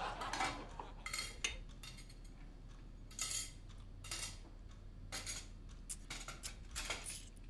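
Cutlery and dishes clinking: a dozen or so light, scattered clinks at uneven intervals.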